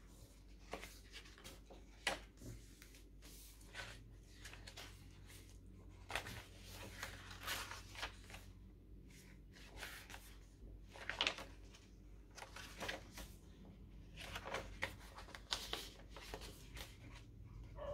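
Paper pages of a handmade journal being turned and handled: faint rustles and light taps of paper, coming irregularly, a little louder around the middle.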